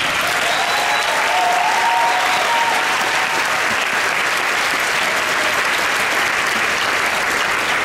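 Large audience applauding loudly and steadily, with a few cheers in the first three seconds.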